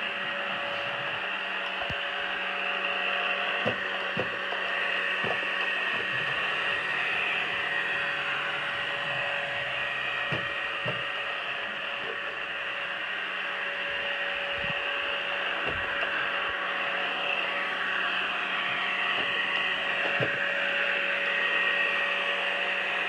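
Pure Clean robot vacuum running on carpet: a steady whir from its suction fan and brush motors with a constant hum under it. A few light knocks are scattered through.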